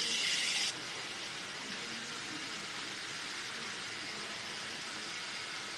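Handheld hair dryer blowing with a steady, even hiss. A louder, higher-pitched hiss on top of it cuts off abruptly under a second in.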